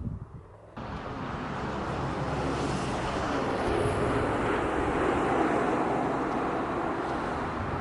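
A steady rushing noise that starts abruptly less than a second in and swells slightly in the middle.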